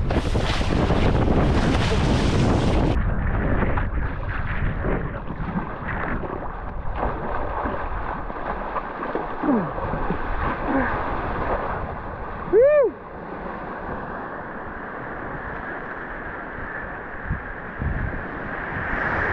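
Wind buffeting the microphone over rushing water while foiling on a board. It is loudest for the first three seconds, then settles to a steadier, lower rush. About two-thirds of the way through there is a short tone that rises and falls.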